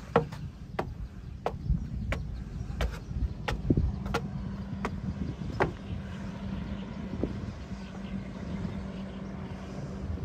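A low, steady engine hum, like a motor vehicle running, under a run of sharp, regular clicks about every two-thirds of a second that stop about halfway through.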